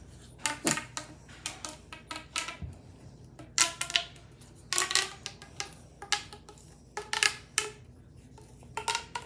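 Small hard objects being handled, clicking and clinking in quick clusters of several taps, with a slight ring after some.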